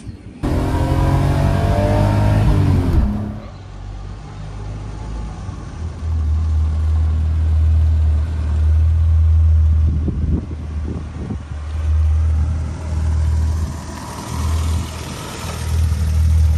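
A car engine revving, its pitch slowly rising for about three seconds, then a low, uneven rumble that comes and goes.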